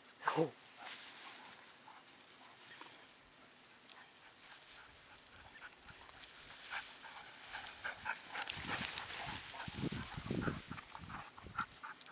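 Dogs playing in tall grass. A short dog yelp, falling in pitch, comes just after the start. Then there is soft rustling and brushing of grass, louder in the second half.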